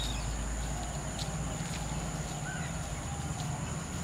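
Quiet outdoor background by a pond: a steady low rumble with a thin, steady high-pitched whine over it, a few faint ticks, and a short chirp about two and a half seconds in.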